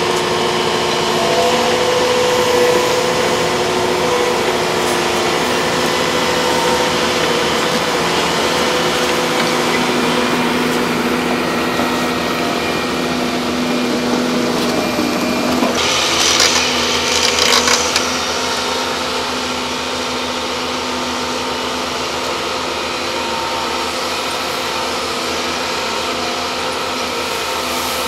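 Volvo excavator diesel engines running steadily under work. About sixteen seconds in there is a harsher, hissing noise lasting about two seconds, after which the engines run a little quieter.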